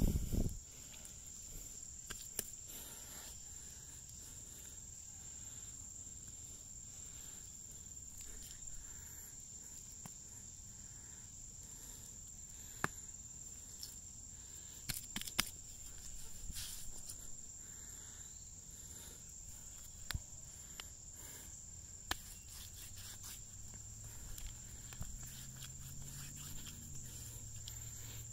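Steady, high-pitched insect chorus, with a few scattered sharp clicks and light knocks.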